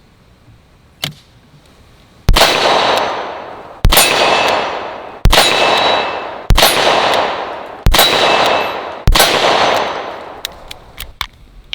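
Smith & Wesson .357 Magnum revolver fired six times with .38 Special rounds, about one shot every second and a half, each shot echoing away with a short ringing tone. A few light clicks follow near the end.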